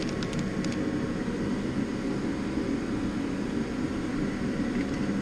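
Steady low rumble of workshop background noise, with a few light clicks near the start as small metal parts are handled in a plastic bag.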